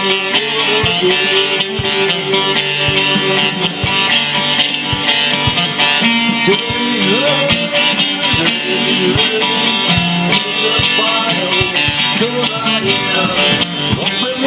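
Instrumental guitar music: a plucked guitar plays a melodic line, with several notes bent in pitch, over steady chords.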